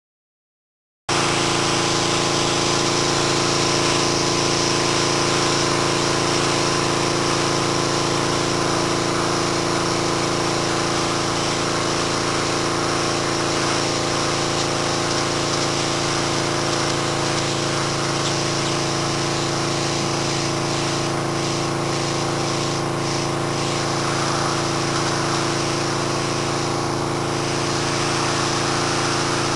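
Pressure washer running steadily: a constant pump-and-motor drone under the hiss of the spray nozzle blasting water onto concrete. It cuts in abruptly about a second in.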